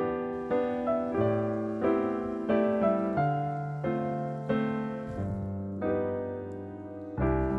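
Background music: slow, gentle piano with notes and chords struck about twice a second, easing off late on before a new low chord near the end.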